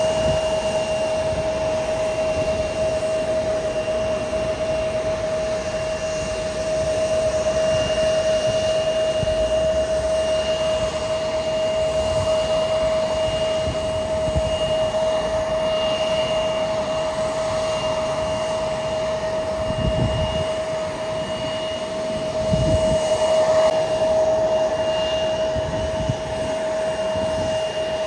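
Jet aircraft engines at low taxi power: a steady rushing whine with a constant high tone held throughout, and a few brief low rumbles about two-thirds of the way through.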